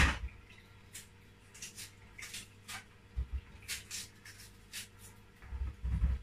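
Knife peeling firm, hard plantains over a wooden chopping board: a sharp knock at the start, then short scraping and tearing sounds as the peel is cut and pulled off, and a few dull knocks near the end as pieces meet the board.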